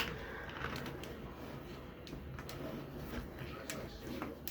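Faint scattered clicks and knocks over low room noise, with one sharper click right at the start.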